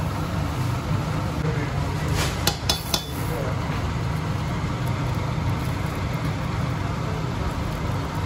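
Water at a rolling boil in a large aluminium pot of macaroni on a gas burner, a steady low rumble. About two to three seconds in, a metal spoon clinks three or four times against the pot.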